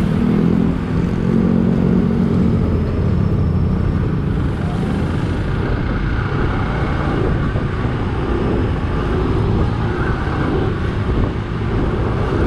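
Motorcycle on the move in city traffic: its engine running steadily under a continuous rush of road noise, with a pitched engine note clearest in the first couple of seconds.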